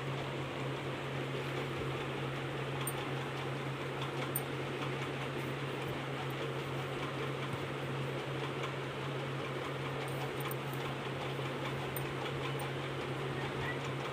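A steady low hum under an even hiss, unchanging throughout, with a few faint scattered ticks.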